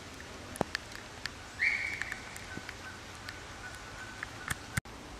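Outdoor ambience in light rain: a steady hiss with scattered raindrop ticks. A bird gives a short bright call about a second and a half in, followed by a thin faint whistle that lasts about three seconds. The sound drops out for an instant near the end.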